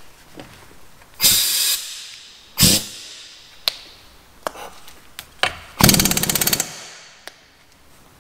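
Impact wrench hammering in short bursts while the wheel's fasteners are undone to remove the rear wheel, with clicks of the tool and socket in between.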